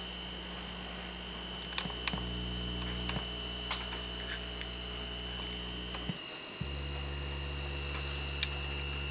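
Low electrical hum with a stack of overtones from a CRT television whose deflection coils are driven by a music track. The hum changes tone a couple of times, cuts out briefly about six seconds in and comes back on a different note. A steady high whine runs alongside, with a few faint ticks.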